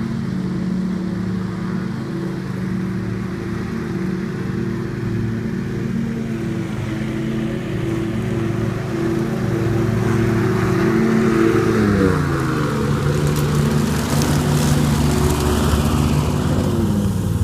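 Scag Tiger Cat II zero-turn mower with its leaf-bagging blower running steadily. The engine note glides down to a lower pitch about two-thirds of the way in and drops again near the end, while the blower and leaf rush grow louder.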